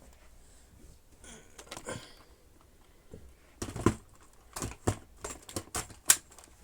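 Handling noise: faint rustling, then a string of irregular clicks and knocks in the second half, the loudest a little before the middle and again near the end.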